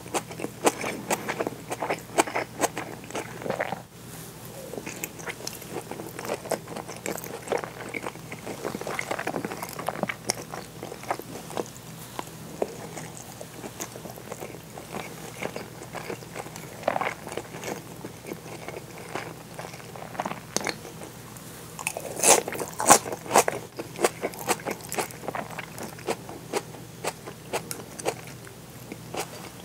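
Close-miked eating: wet chewing and crisp crunching of seared bonito with shredded raw greens, green onion and rice. There are many short crunches and clicks, with the loudest run about 22 seconds in.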